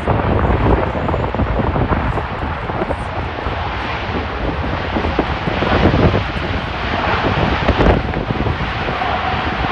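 Jet engine roar from a four-engined Airbus A380 landing, with wind gusting on the microphone; a steady whine comes in near the end.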